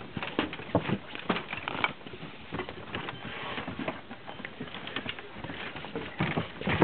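Irregular crunching and knocking of footsteps and dog paws on snow-covered wooden porch steps.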